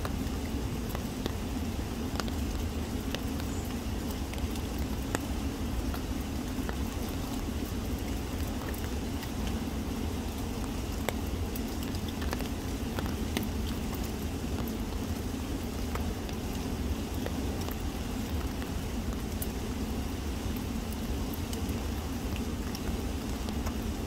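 Spring-fed river water flowing steadily in a low, even rush, with light rain falling, single drops heard as scattered faint ticks.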